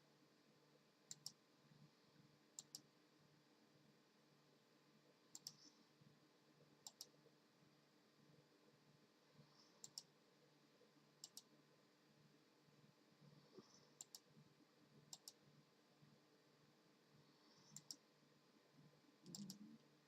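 Faint sharp clicks, mostly in close pairs, about one pair every second or so, over a low steady hum. A brief louder rustle comes near the end.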